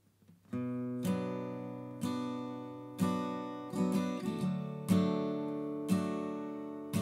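Solo acoustic guitar starting up about half a second in, chords struck roughly once a second and left to ring, with a few quicker picked notes near the middle.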